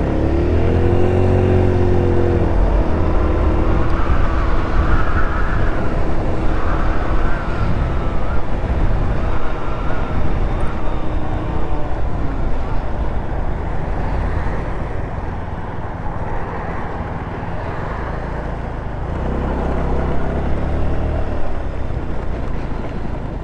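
GY6 scooter's four-stroke single-cylinder engine accelerating away from a stop, its pitch rising, then running at speed with wind buffeting the microphone. The engine note climbs again about three-quarters of the way through.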